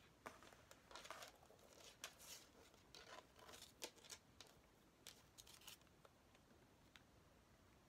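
Packaging being handled as an album is unwrapped and taken out of its pouch: faint rustling, crinkling and tearing in a run of short bursts that stops about six seconds in.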